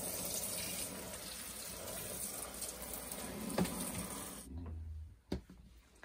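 Handheld shower head spraying water into the tub of a small portable washing machine packed with clothes, filling it. The spray stops about four and a half seconds in, followed by a brief low hum and a single click.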